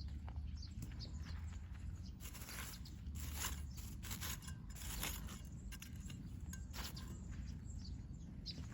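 Irregular scraping and rustling strokes of garden work in soil, typical of potatoes being dug up, over a low steady rumble.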